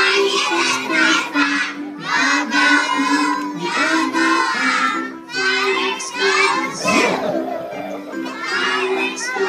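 A group of young children singing loudly, close to shouting, in short phrases along with a backing music track that plays a simple melody.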